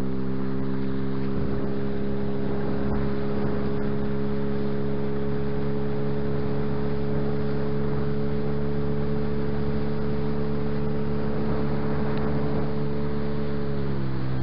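Tohatsu outboard motor running steadily at speed as the boat travels, with rushing water and wind underneath. The engine note starts to fall right at the end as it slows.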